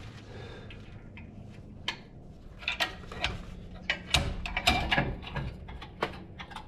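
Irregular metal clicks and knocks from tools and brake parts being handled, with a few sharper clanks scattered through.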